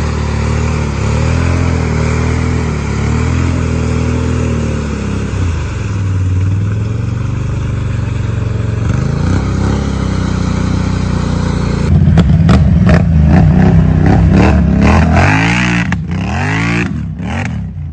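ATV engines revving under heavy load as four-wheelers spin through deep mud, a steady wavering drone at first. About twelve seconds in it gets louder and choppier, with quick rev-ups rising in pitch.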